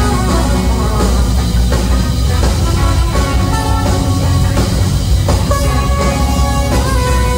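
Live rock band playing loudly: electric guitars and a drum kit with a trumpet, heard from the audience.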